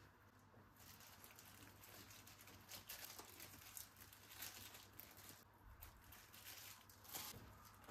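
Near silence with faint rustling and a few light taps and clicks.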